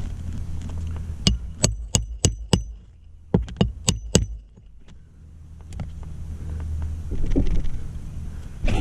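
Two quick runs of sharp metallic clicks or taps, five and then four, each with a brief ring, over a low steady rumble.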